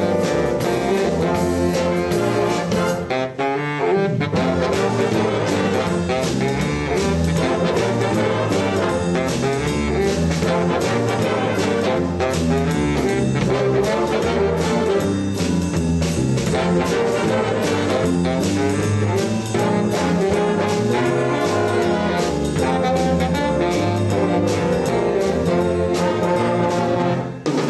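Jazz big band playing a baritone saxophone feature, the baritone sax in front over a brass section and a drum kit keeping time.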